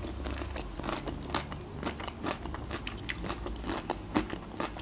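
Close-miked chewing of a bite of pickled cucumber: many small irregular crunches.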